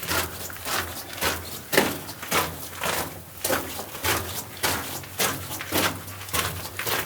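Footsteps on a mine tunnel floor at a steady walking pace, about two steps a second.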